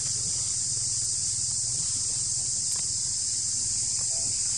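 A steady, high-pitched insect chorus buzzing without a break, with a low steady hum beneath it.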